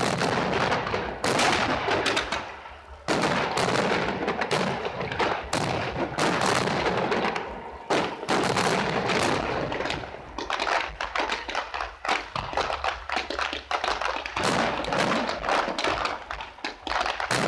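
Aerial fireworks bursting in quick succession: a dense run of bangs over continuous crackling, with sudden loud reports at the start and again about three seconds in.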